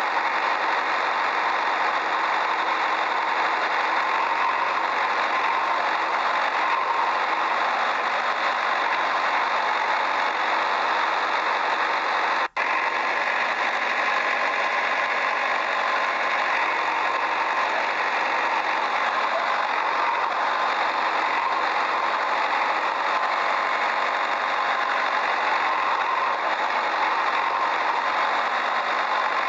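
Small toy motor running steadily with a whirring mechanical drone and no deep bass, cutting out for an instant about halfway through.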